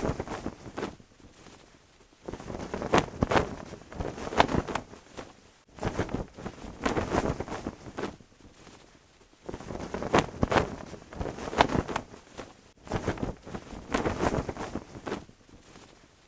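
A cloth flag flapping and snapping in the wind. It comes in four gusts, each a quick run of flaps, with short lulls between.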